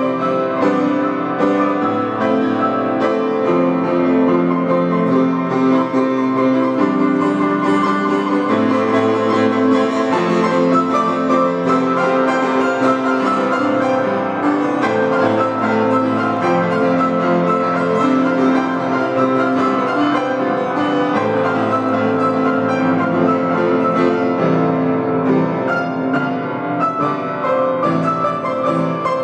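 Upright piano playing a continuous piece of chords and melody, played by two people at one keyboard.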